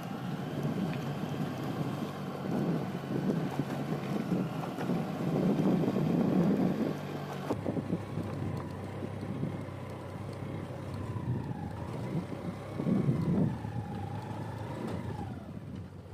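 Wind buffeting the microphone over the steady running of a moving vehicle's engine on a dirt track. The engine note wavers up and down in the second half.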